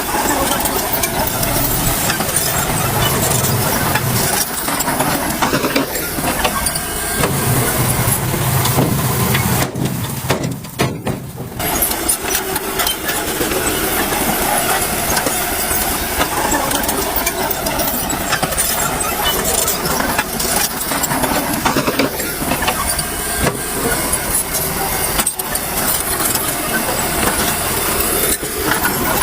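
Dump truck engine running amid dense, loud noise of heavy construction work, with a short drop in level about ten seconds in.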